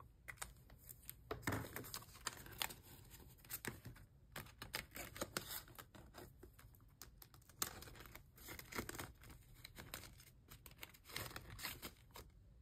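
Paper banknotes and clear plastic binder envelopes rustling and crinkling as cash is handled in an A6 ring binder, in many short, irregular rustles and light clicks.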